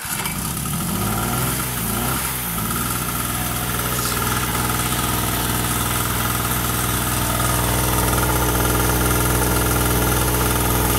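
Toyohama TH950 small two-stroke gasoline generator catching on a pull of the recoil starter, its engine speed wavering for the first couple of seconds before settling into a steady run.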